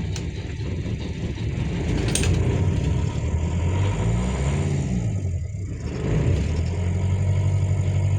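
Thornycroft BMC marine diesel starting after glow-plug preheat and running. About four seconds in it is revved up and back down, then it settles to a steady idle.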